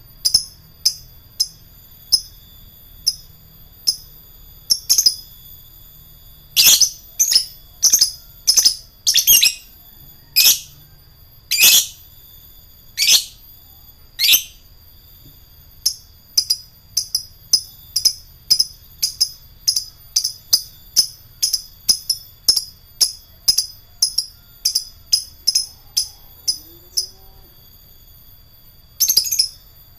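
Lovebird chirping in a long run of short, sharp, high-pitched notes, mostly about two a second, in the rapid 'ngetik' typing-like style. Several louder, longer bursts come between about a quarter and half of the way through, and again near the end.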